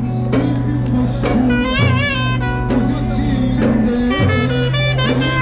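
Jazz music: a wavering lead melody over long held bass notes and a drum beat.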